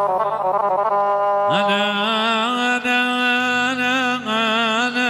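Iraqi folk music, instrumental: a melody instrument plays quick ornamented notes, then slides up about a second and a half in into a long held note with vibrato.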